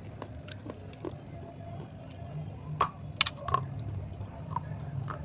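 Mouth-close chewing of a dry, crunchy clay roll: scattered sharp crackles and crunches, with a small cluster about three seconds in.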